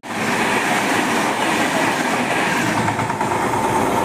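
A passenger train passing close by at speed: steady loud wheel-and-rail noise that starts abruptly just after a split-second gap.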